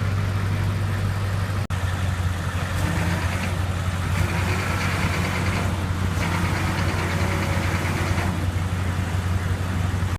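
Tow truck engine running steadily while its cables lift a heavy milling machine. A higher whine comes and goes three times over it as the load is raised.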